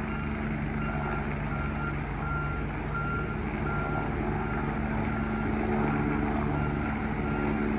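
Twin-turbine UH-72 Lakota helicopter hovering just above the ground: a steady turbine whine and rotor noise. A short high electronic beep repeats somewhat under twice a second throughout.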